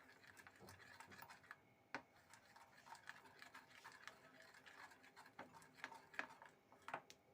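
Wet gram-flour and egg batter being mixed in a bowl: faint, irregular clicks and taps, spaced from about half a second to a second apart.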